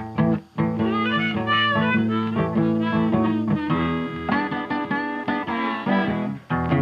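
Instrumental background music with held bass notes under a moving melody.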